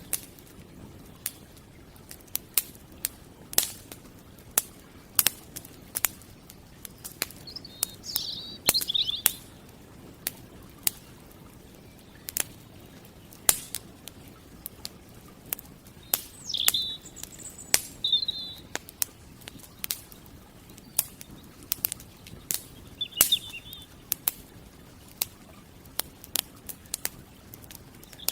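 Campfire crackling: irregular sharp pops and snaps from burning wood. Birds chirp briefly over it a few times.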